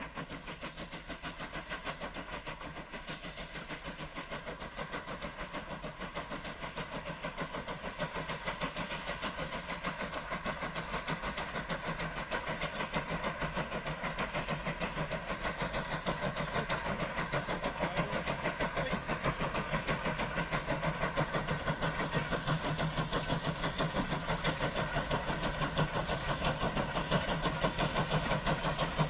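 Heritage train approaching and passing at a distance, a steady running sound with a quick regular beat that grows gradually louder.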